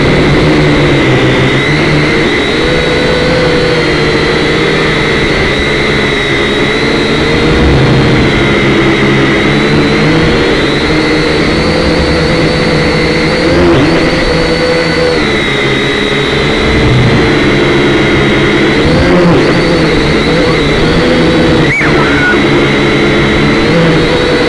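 Small drone's electric motors and propellers whining loudly, heard through the drone's own onboard microphone; the pitch of the motor tones rises and falls every few seconds as the throttle changes.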